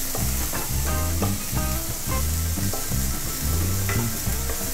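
Chopped onions and ginger sizzling as they fry in hot oil in a kadai, stirred with a wooden spatula. A steady low repeating beat of background music runs underneath.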